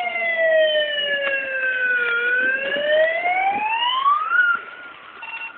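A siren wailing in one slow glide: falling in pitch for about two seconds, then rising again before cutting off about four and a half seconds in.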